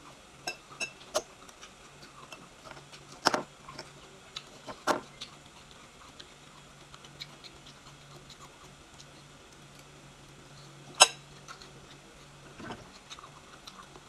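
Metal fork clinking and scraping against a ceramic salad bowl as salad is picked up: a scatter of sharp clicks, the loudest about eleven seconds in, with quieter ticks of close-up chewing between, over a faint low hum.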